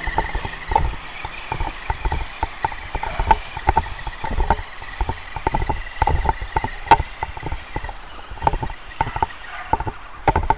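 Irregular footfalls and rustling of vegetation from walking quickly along an overgrown trail, behind the faint steady whine of a radio-controlled rock crawler's brushed electric motor driving ahead.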